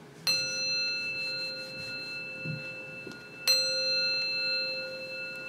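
A bell struck twice, about three seconds apart, each stroke ringing on with a clear, high, bell-like tone that slowly fades.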